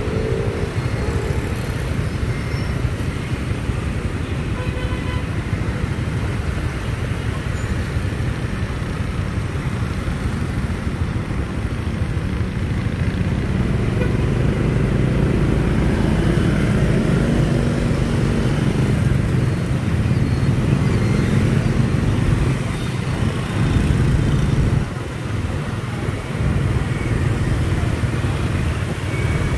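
Dense road traffic at a city intersection: motorbike and car engines running and passing in a steady rumble that grows louder about halfway through.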